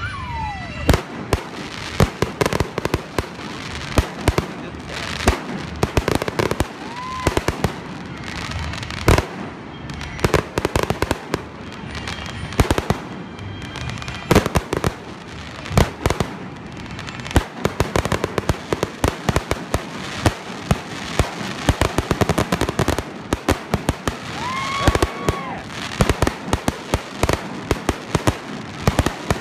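Fireworks display: a dense, continuous run of sharp bangs and crackling bursts from exploding shells, several a second. Two brief whistling tones come through, one early and one near the end.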